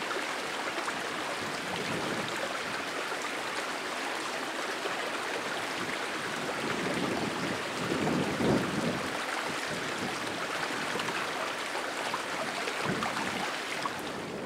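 Steady rush of running water, briefly louder about eight seconds in.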